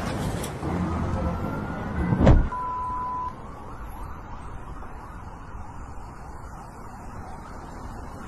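Car driving, with steady engine and road noise. About two seconds in there is a loud thump, then a short, high, steady beep.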